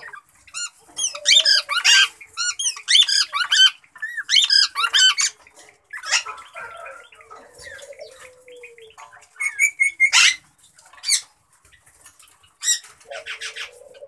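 Plum-headed parakeets calling: shrill squawks and warbling chatter in a string of short bursts with brief gaps between.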